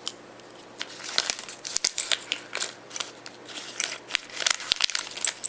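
Small plastic packaging being opened and handled: irregular crinkling and clicking that starts about a second in.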